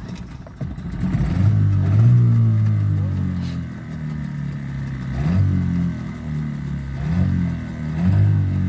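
Tohatsu outboard motor catching about a second in after a cord pull, then running with its pitch stepping up and down a few times as the tiller throttle is worked.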